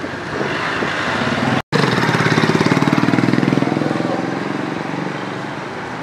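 Small engine running with a fast, even chug. It is loudest just after a brief dropout about a second and a half in, then slowly fades.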